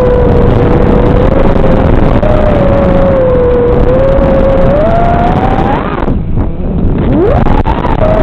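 FPV racing quad's Xing 2206 2750 KV brushless motors whining through T-Motor 5143 props over a rush of air, the pitch wandering with throttle. About six seconds in the pitch climbs, then the motor sound drops away suddenly as the throttle is chopped, and it rises again in a quick upward glide near the end.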